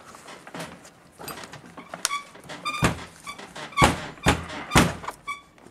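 Metal clanks and knocks as a Makita SDS-Max demolition hammer's housing is handled in a steel bench vise during disassembly. About six sharp knocks come in the second half, several ringing briefly.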